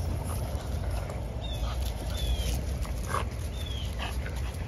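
Airplane passing overhead, a steady low rumble, with a few short, high, falling squeaks from puppies over it.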